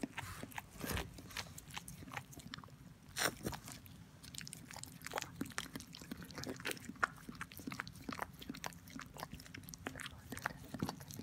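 Border collie licking her newborn puppy: an irregular run of soft, wet clicks and smacks.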